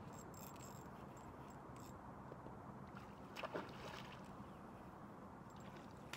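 A hooked trout splashing and thrashing at the lake surface, with a short burst of splashes about three and a half seconds in and more near the end.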